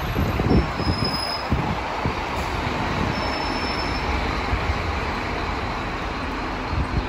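City bus passing close and pulling away: steady engine and road noise, with gusts of wind on the microphone near the start.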